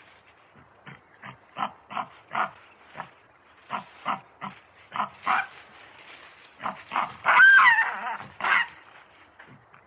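Baboon vocalizing: a run of short, rough grunts, about two or three a second, then a louder drawn-out call about seven seconds in that rises and falls in pitch, followed by a few more grunts.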